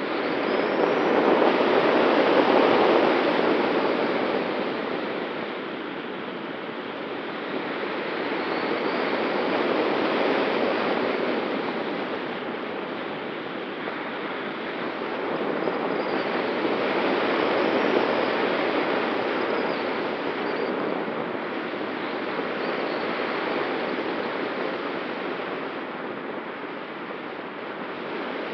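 Airflow rushing over an ASW 19 glider's wing and the wing-mounted camera in gliding flight: a steady wind rush that swells and eases every several seconds.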